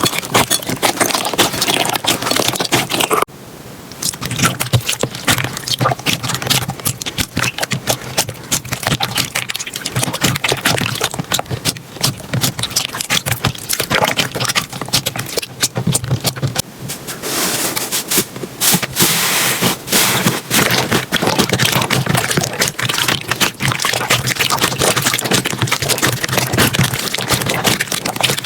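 Slime being squeezed, poked and stretched by hand, giving a dense run of crackling, popping clicks. The sound drops briefly about three seconds in, then goes on.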